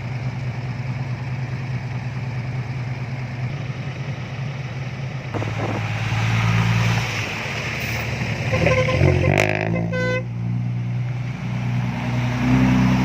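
A vehicle engine running steadily; its note shifts about five seconds in. Around nine to ten seconds in there is a brief horn toot.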